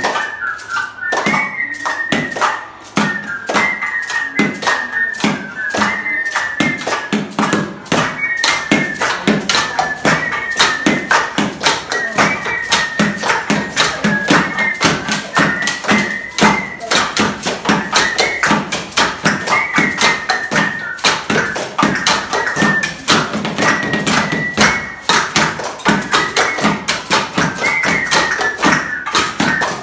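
Improvised classroom percussion: tapping on desks, tin cans and plastic bottles in a quick, steady beat, with a high, wavering melody carried over it.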